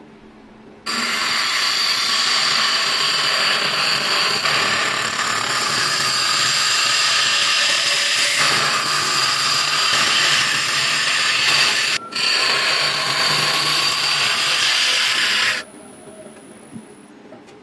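A Hunter hollowing tool with a carbide cutter takes the final cut inside a large monkey puzzle wood vessel spinning on a lathe, making a loud, steady cutting noise. The noise starts about a second in, breaks off for a moment about twelve seconds in, and stops near the end.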